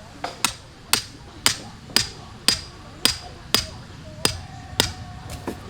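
A hammer striking a tent peg over and over to drive it into the ground, about two blows a second with a short metallic ring on each.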